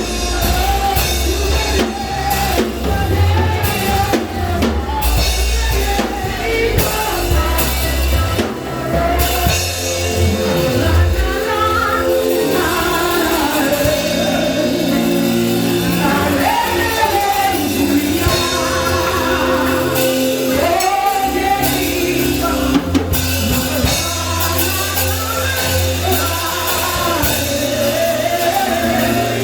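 Music with a drum kit and singing: a loud, dense band sound with a steady beat under voices.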